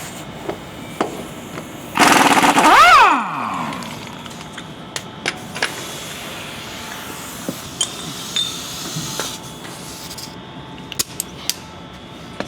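A power tool runs briefly about two seconds in, its pitch rising and then falling, while bolts for the truck's body mounts are run in. Scattered light metallic clicks and knocks of hardware and tools follow.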